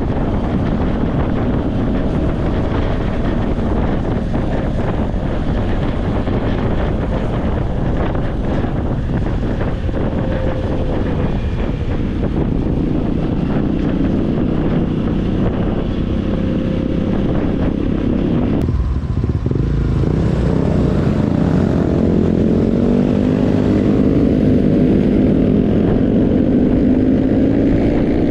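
An engine runs steadily under a constant rush of wind-like noise. About 20 seconds in, its note becomes clearer and climbs slowly, and the sound grows a little louder.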